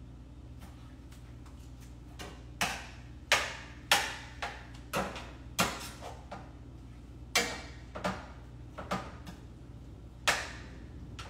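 Metal cooking utensil clanking against a pan on the stove: about a dozen sharp, irregular knocks with short ringing tails, starting about two seconds in.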